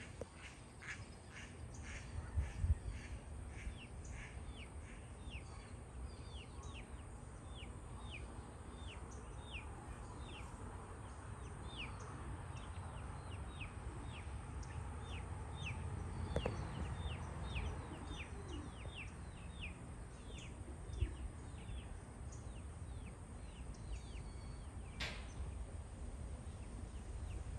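A bird calling over and over in short, high, falling notes, about two a second, over a low steady rumble. A single sharp click comes near the end.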